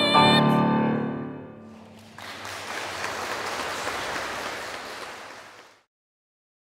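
Grand piano's closing chord ringing out and fading, followed by an audience applauding for about three and a half seconds, which cuts off suddenly.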